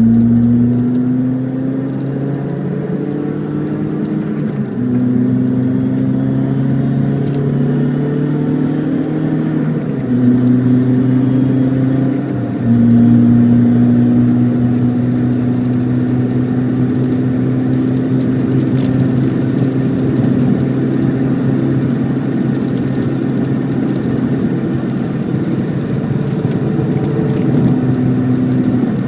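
Toyota Corolla engine running steadily and loudly, its pitch slowly creeping up and then shifting to a new level in steps a few times.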